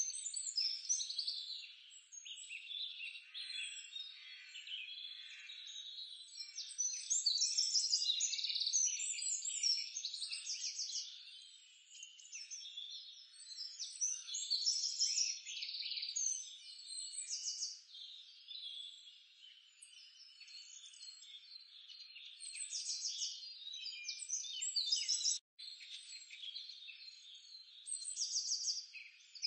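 A steady outdoor chorus of small animals making high-pitched chirping calls in rapid trills and chatters, swelling and fading in bouts, with a brief dropout near the end.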